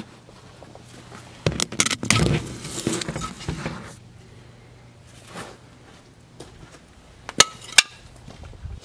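A sheet of ice being cracked loose and lifted off a tractor seat: clinking and crunching that is loudest from about one and a half to four seconds in. Two sharp clicks follow near the end.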